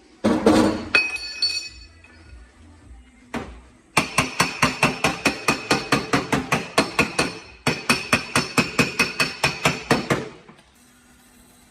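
Hammer striking a Tesla Model S body panel. One ringing metallic blow comes near the start and another at about three seconds, then two fast runs of taps, about five a second, each with a short metallic ring: panel beating to work out side-impact damage.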